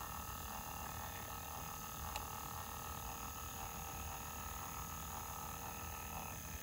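Small electric motor of a rotating display turntable humming steadily, with one faint click about two seconds in.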